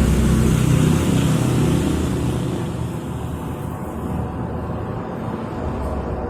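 A motor vehicle's engine passing close by, loudest in the first couple of seconds, then slowly fading away.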